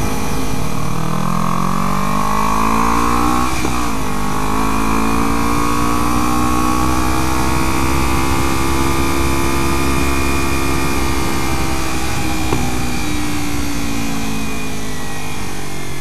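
Kawasaki Ninja 300's parallel-twin engine accelerating, heard from the rider's position: its pitch climbs, breaks briefly near four seconds at an upshift, climbs again, then falls slowly as the rider eases off. Wind noise runs underneath.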